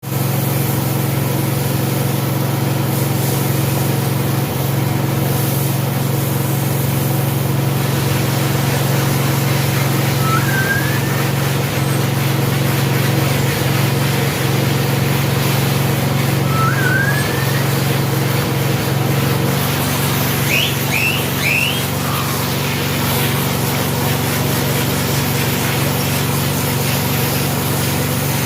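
Motor-driven carpet-washing machine running steadily with a constant hum; its tone shifts slightly about two-thirds of the way through. A few short high chirps sound over it around the middle.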